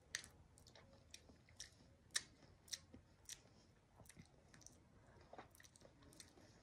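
Faint, irregular mouth clicks and lip smacks, about a dozen short ticks, as someone tastes a sauce.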